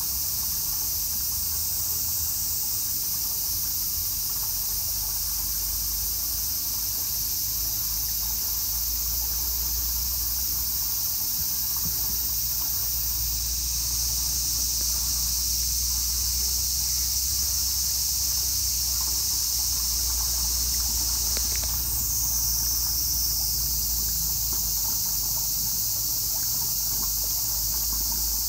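Steady, high-pitched chorus of insects shrilling without a break, with a low rumble underneath.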